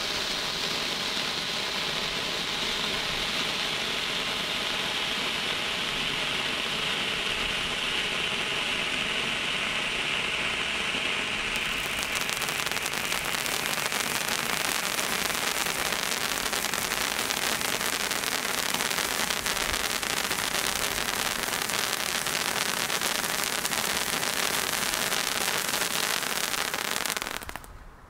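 SF-4141 Super Torch handheld firework burning with a steady hiss. About twelve seconds in it turns from coloured flame to a spray of white sparks, and the hiss becomes brighter and crackling. It burns out abruptly near the end.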